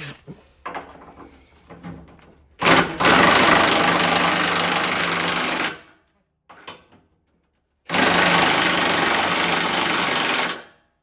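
Impact wrench run twice in long bursts of about three seconds each, driving a nut home on the fuel tank's mounting, with a few light knocks of tools and parts before the first run.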